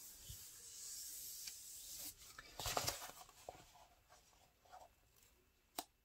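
Faint rustling and rubbing of a diamond painting canvas and its plastic cover film as hands smooth and fold it, louder about three seconds in, then dying down, with one sharp tap near the end.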